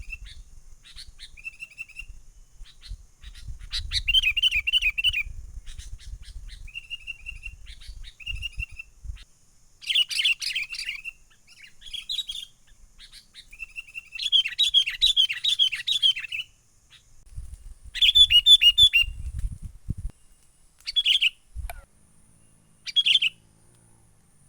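Sooty-headed bulbuls (kutilang) calling in lively bouts: short, rapid chattering phrases repeated again and again, some single and some in quick runs, the calls used as a trapping lure. A low rumble comes and goes under the calls.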